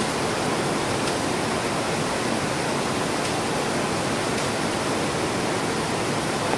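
Heavy rain falling steadily on a translucent plastic roof, an even rush of noise.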